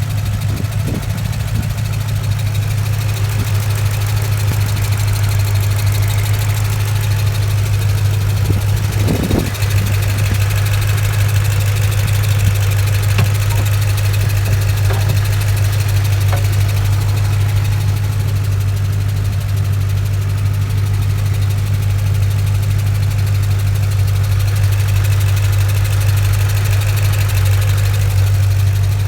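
2006 Mustang GT's 4.6-litre V8 idling steadily with a fast ticking from the driver-side cylinder head, which the owner suspects is valve springs or lifters.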